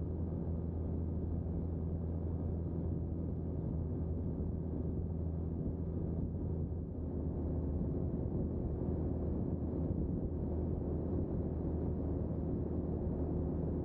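Pipistrel Virus SW ultralight aircraft's engine and propeller running steadily in flight. The engine note changes about halfway through.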